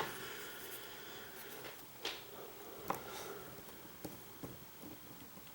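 A lock pick and tension wrench working the pins of a pin-tumbler lock: faint metallic scraping with a few small clicks, the sharpest about two and three seconds in.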